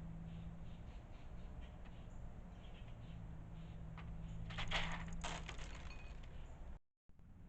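Light taps and clicks of a bird pecking and scrabbling at seed in a food bowl, with a louder flurry of clicks and rattles past the middle, over a steady low hum. The sound cuts out completely for a moment near the end.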